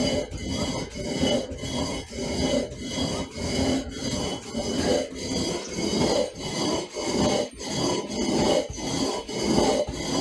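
Rhythmic back-and-forth rasping strokes, about three every two seconds, of a hand tool scraping or filing a hard surface.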